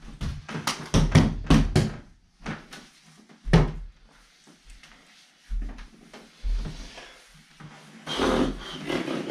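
Juggling balls thudding: a quick run of about seven knocks in the first two seconds as a five-ball pattern falls apart, one sharp knock a little later, then a few scattered thuds as the balls are dropped and gathered. A longer stretch of noise near the end.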